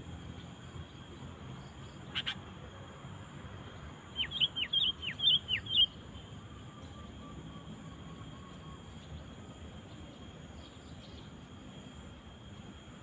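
Sooty-headed bulbul (kutilang) calling: one short sharp note about two seconds in, then a quick run of about six clear whistled notes, each dropping steeply in pitch, over a steady faint hiss.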